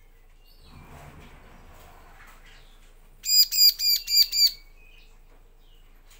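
Bar-winged prinia (ciblek) calling a quick burst of about six loud, sharp, evenly spaced notes a little past the middle. A faint shuffling noise comes before it.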